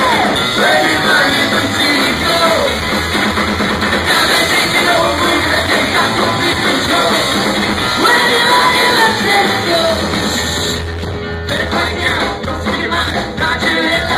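Live ska-punk band playing loudly: drum kit, electric guitars and bass, with a singer's vocal over the top. The cymbals and high end drop out briefly about eleven seconds in, then the band carries on.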